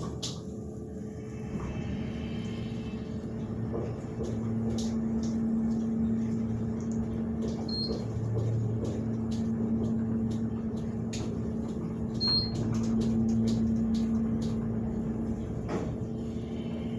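A 2003 KONE hydraulic elevator travelling between floors, heard from inside the cab: a steady hum that grows stronger a few seconds in, with scattered light clicks. Two short high beeps sound partway through.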